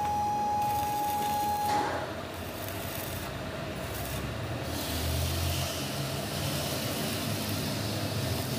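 Electric arc welding crackling steadily as weld metal is laid into the worn bore of a bearing housing to build it back up. A steady high tone runs under it and stops about two seconds in.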